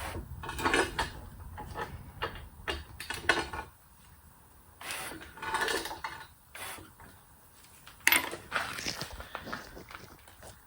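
Scattered metallic clinks, clanks and short scrapes of hand tools and engine parts as the small-block Chevy V8 is turned over by hand during teardown, with one sharp metal knock about eight seconds in, the loudest sound.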